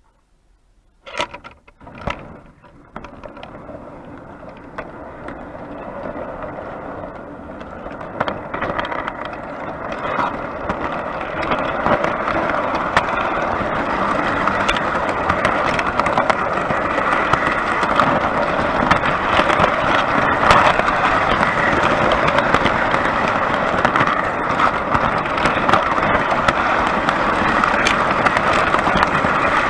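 Three-rail O gauge tinplate model train pulling away, with a few sharp clanks about a second in as it starts. Then its wheels rumble and rattle along the track, getting louder as it gathers speed and settling into a steady run with frequent clicks.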